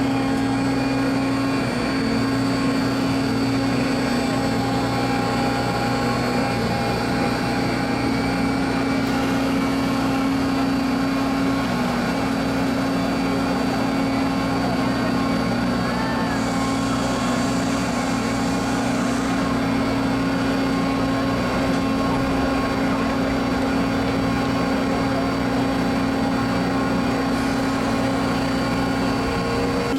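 A large engine running steadily: a continuous drone with a fixed hum that does not change in pitch.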